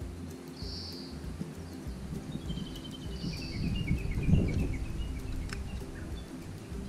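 Background music with birds calling over it, including a descending run of chirps in the middle. A low rumbling thump a little over four seconds in is the loudest sound.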